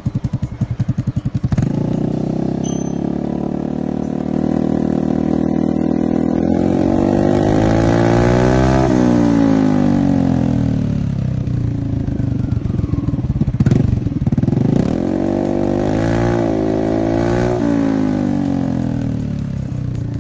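Motorstar Easy Ride 150N scooter's 150 cc single-cylinder engine running through a Villain carbon muffler with the silencer insert removed. It starts at a pulsing idle and about one and a half seconds in picks up to a steady higher speed. It is then revved up and let back down twice, the second time near the end.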